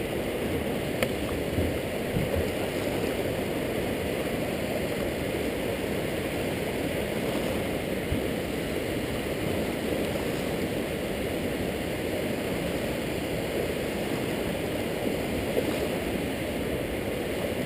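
Steady rush of river water pouring over a low dam spillway and running through the shallows.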